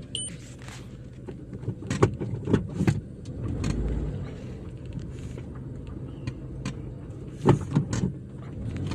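Motor vehicle engine running with a steady low hum, with scattered knocks and rattles over it.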